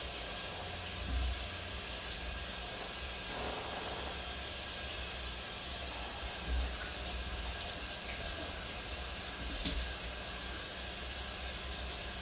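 Kitchen sink faucet running steadily while raw beef tips are rinsed under it to wash out the blood, with a few soft low thumps from handling.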